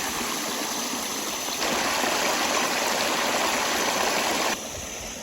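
Rushing stream water, a steady hiss. It gets suddenly louder about one and a half seconds in and drops back abruptly near the end.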